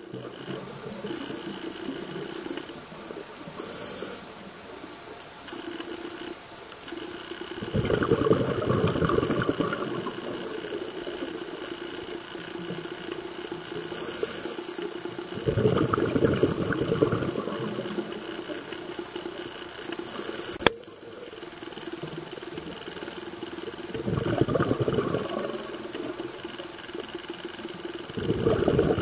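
A scuba diver breathing through a regulator, heard underwater: a short high hiss on each inhale and a rush of exhaust bubbles on each exhale, roughly every eight seconds. The bubble rush comes four times and is the loudest thing. A faint steady hum lies underneath.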